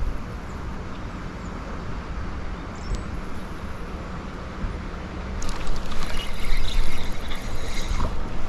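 Steady outdoor noise, like wind on the microphone, then from about five seconds in a busy run of sharp clicks and rattles as a small fish, a perch, is brought in to a kayak.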